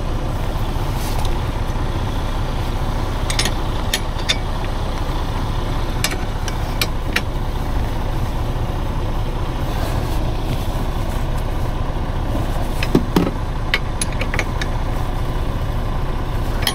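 A heavy truck's engine idling steadily, with scattered light clicks and knocks on top.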